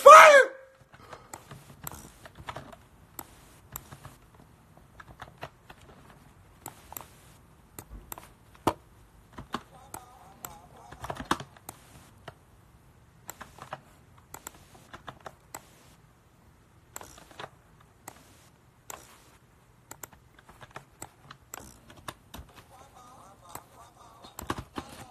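Computer keyboard typing: irregular key clicks through the whole stretch, over a faint low hum. A short burst of voice comes at the very start, and faint murmured voice is heard twice, in the middle and near the end.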